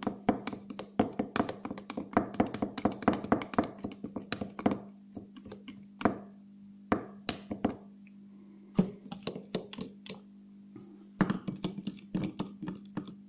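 A table knife stirring glycerin and colour powder in small jars, its blade clicking and tapping against the jar walls in quick runs. A slower stretch in the middle has only a few separate taps.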